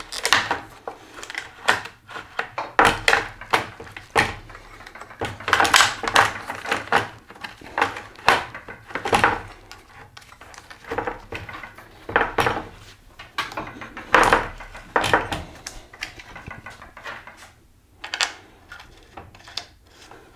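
Irregular metallic clicks, clinks and rattles of a bicycle chain and crankset being handled as a Rotor crank arm is fitted back onto its axle, coming in bunches with short gaps and thinning out near the end.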